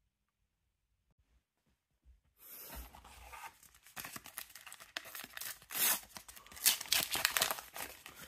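A Panini World Class 2024 sticker packet being torn open, its wrapper crinkling and crackling in uneven bursts as the stickers are pulled out, starting after about two seconds of dead silence.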